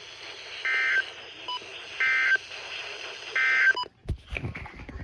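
Three short bursts of EAS/SAME data tones, the end-of-message code, from NOAA Weather Radio, each about a third of a second and spaced about 1.4 s apart over a steady radio hiss, with fainter short beeps between them. Near the end the radio audio cuts off and a few low thumps follow.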